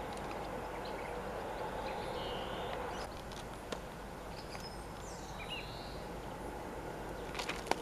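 Faint running noise of an ED9M electric multiple unit train moving away, dropping off about three seconds in. A few short bird chirps sound over it, and there are some sharp clicks near the end.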